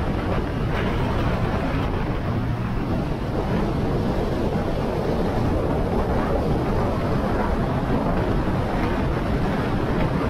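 Steady wind rushing over the microphone of a moving motorcycle, with engine and road noise underneath.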